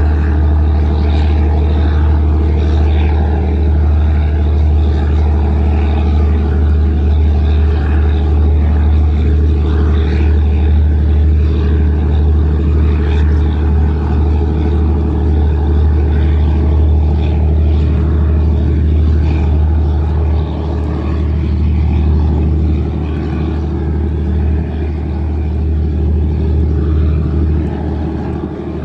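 Engines of the high-speed passenger ferry Mirangga Alpha running at speed as it passes: a loud, steady, deep drone, with water rushing from its stern spray. The drone eases slightly about two-thirds of the way through.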